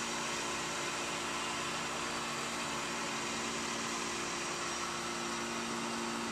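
Steady machine hum: two constant low tones over an even hiss, unchanging throughout.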